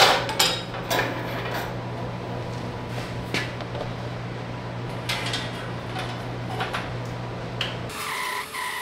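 Light metallic clinks and knocks from handling the bandsaw and its blade, over a steady low hum. About eight seconds in this gives way to the bandsaw resawing black walnut with a Laguna Resaw King blade, a steady whine.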